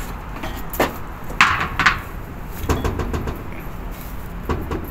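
Knocks and scraping as the blower motor's V-belt pulley and belt are handled and turned by hand during a bearing check, with a longer scrape about a second and a half in, over a steady low drone.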